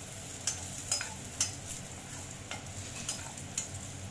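Chopped garlic and ginger sizzling in hot oil in a kadhai, with a steady hiss, while a metal slotted spatula stirs them and clicks and scrapes against the pan repeatedly, about every half second.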